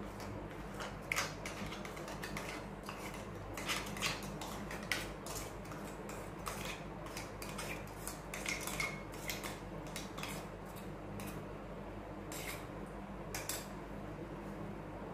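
A metal spoon scraping and tapping thick ground chutney out of a stainless steel mixer-grinder jar into a steel bowl: irregular metal-on-metal clinks and scrapes that thin out toward the end.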